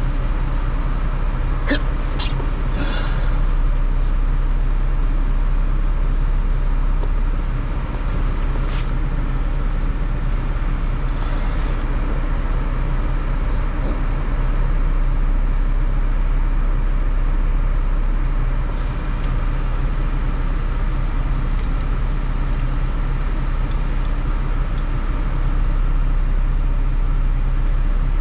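Steady low vehicle hum, with a few sharp clicks about two to three seconds in and one near nine seconds.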